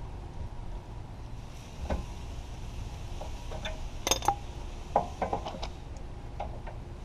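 Metal hand tools clinking against each other and on concrete as a ratchet, wrenches and a hammer are picked up and set down; a scattering of short clinks, loudest about four and five seconds in, over a low steady rumble.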